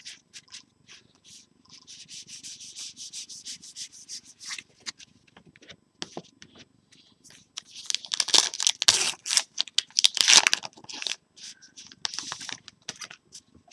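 Stack of trading cards being handled and riffled, then the wrapper of the next trading-card pack crinkling and tearing open. The loudest stretch is the wrapper, from about 8 to 11 seconds in.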